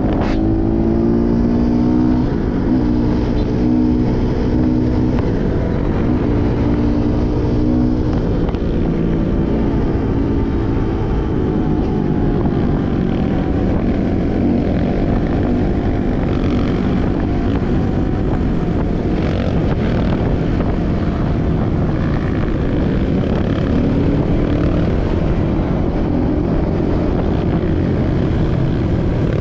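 Trail motorcycle engine running while the bike is ridden, its pitch rising and falling in the first several seconds over a constant low rumble.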